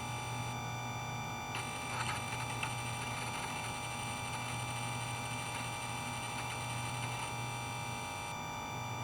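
Disk drive spinning: a steady hum with high, even whining tones, and a couple of faint ticks about two seconds in.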